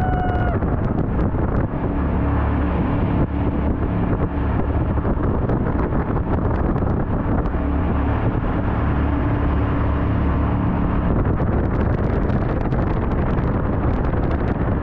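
Jet boat's engine running steadily at speed, a low drone, with wind buffeting and crackling on the microphone.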